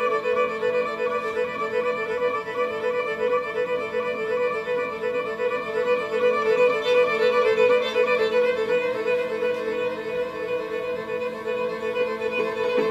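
Violin music: a bowed note held on with a quick pulsing tremolo.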